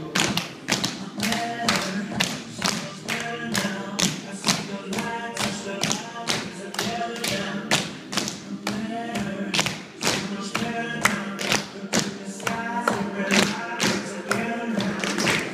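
A group of children's tap shoes tapping on a studio floor in quick rhythmic steps, over recorded music with singing.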